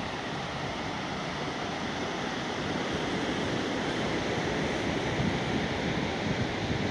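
Ocean surf breaking and washing up a sandy beach, a steady rushing wash, with wind buffeting the phone's microphone in low gusts that grow a little stronger in the second half.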